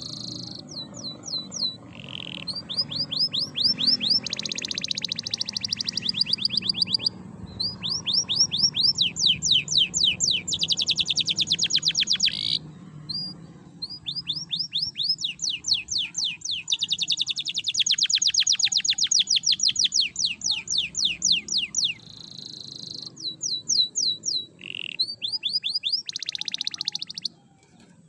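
Domestic canary singing long, fast trills of rapidly repeated notes in the rattling 'ngerek' style, phrase after phrase with brief pauses. It stops a little before the end.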